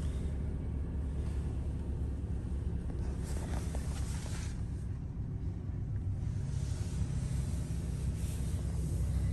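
The 6.8-litre V10 of a 2005 Ford E-350 van idling steadily, heard from inside the cab as a low rumble. A short hiss rises over it around three to four seconds in.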